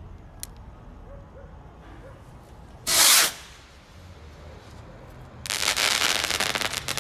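Aerial firework shell: a short, loud blast about three seconds in, then from about five and a half seconds a dense crackling as the shell's stars break in the sky.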